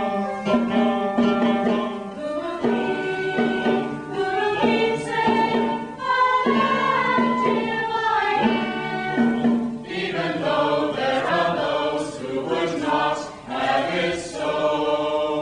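A choir singing, several voices together in held notes, in short phrases with brief breaks between them.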